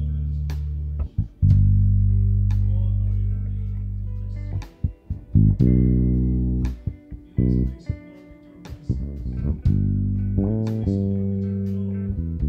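1984 Fender Jazz Bass Special PJ-535 electric bass played fingerstyle, recorded direct from the amplifier. It plays a melodic line of plucked notes, some left to ring for a second or two and others short and muted, with a brief lull just past the middle.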